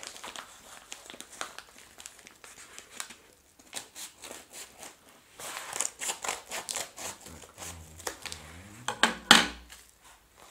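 Scissors snipping through a plastic padded mailer, with the envelope crinkling and rustling as it is handled and opened; a louder rustle comes about nine seconds in.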